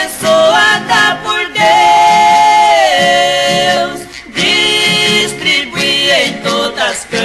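Two male voices of a Brazilian música caipira duo singing long held notes in parallel harmony.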